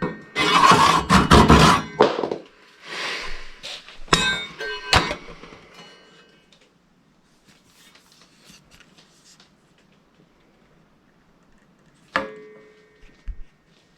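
Hand woodworking on a wooden tenon: a couple of seconds of rough scraping strokes on wood, then a few sharp knocks with a brief ring, and one more knock near the end.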